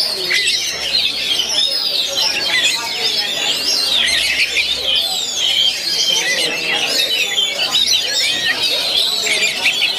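Oriental magpie-robins (kacer) in song competition: many songs overlap in a dense, unbroken chorus of quick whistles, chirps and trills.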